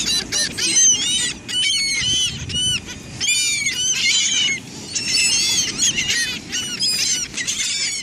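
A flock of laughing gulls calling nonstop, many short squawking calls overlapping one another as the birds crowd in for food.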